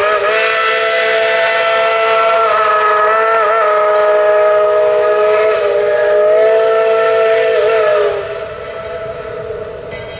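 Chime steam whistle of Tweetsie Railroad No. 12, a 1917 Baldwin 4-6-0 steam locomotive, blowing one long blast: a chord of several tones held for about eight seconds with slight wavers. It then drops away to a fainter sound.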